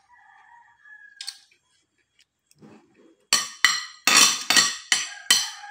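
Spoon and fork clinking and scraping against a ceramic plate while eating. After a faint ring and a single click, a quick run of loud, sharp clinks starts about three seconds in, roughly three a second.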